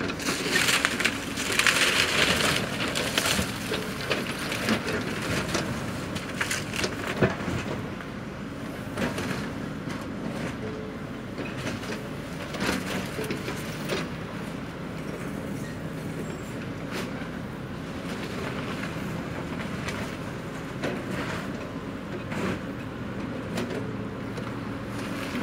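Kobelco hydraulic excavator tearing apart a wood-framed building: a loud crash of splintering timber and falling debris in the first few seconds, then scattered sharp cracks of breaking wood over the steady hum of the excavator's diesel engine.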